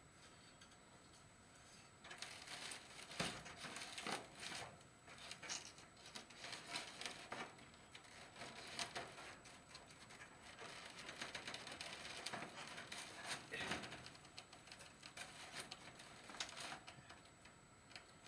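Chicken wire being bent and pressed by hand against foam board: irregular rustling and scraping with small clicks, starting about two seconds in.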